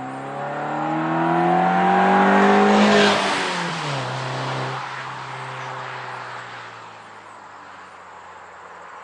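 Mazda 3's 2.5-litre four-cylinder engine, breathing through a K&N short ram intake and Corksport axle-back exhaust, accelerating past. It rises in pitch and gets louder for about three seconds, then drops in pitch as it goes by and fades away.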